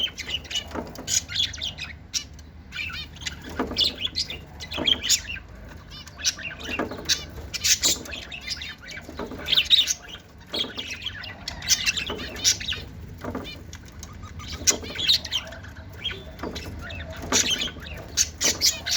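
Lovebirds calling, a busy run of short, high-pitched calls and chirps that come irregularly several times a second and overlap.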